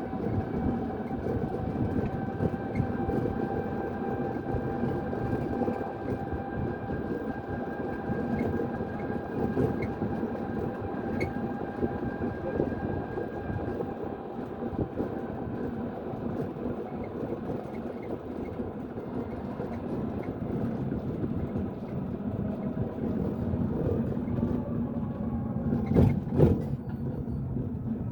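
Steady rumble of a moving vehicle with a faint whine that slowly drops in pitch, and a couple of sharp knocks near the end.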